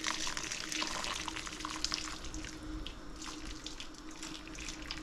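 Hot water poured from an electric kettle into a stainless steel bowl over a smoked herring: a steady splashing pour with small drips that gradually tapers off.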